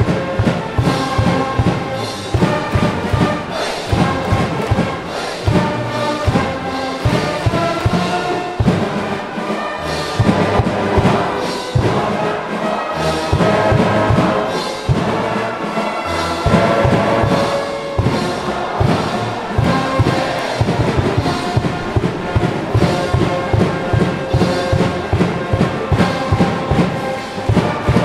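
High-school baseball cheering brass band playing a fight song in the stadium stands, trumpets and trombones over a steady drum beat.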